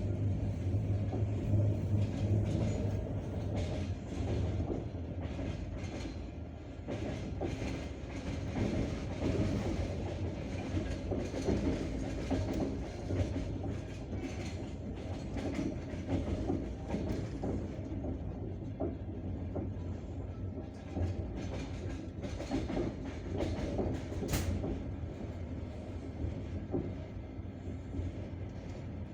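Passenger train in motion, heard from inside a carriage: a steady rumble with the clickety-clack of the wheels over rail joints, and one sharper click near the end.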